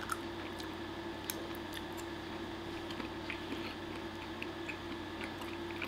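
Eating sounds: a metal fork clicking and scraping on a plate as spaghetti is twirled, with soft chewing, over a steady low hum.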